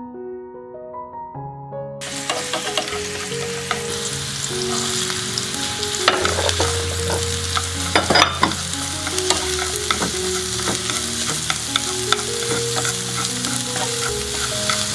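Minced garlic and lemongrass sizzling in hot oil in a pan, stirred with chopsticks that tap and scrape the pan. The sizzle starts about two seconds in, and light piano-like background music runs underneath.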